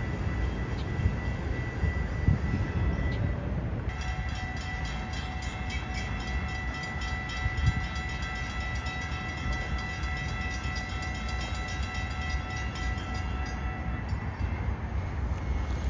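Passenger train rumbling past, its horn sounding one steady chord held for about ten seconds in the middle.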